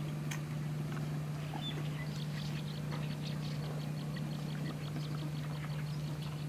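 A steady low hum, like a running motor, with a quick run of short high ticks or chirps from about two seconds in to near the end.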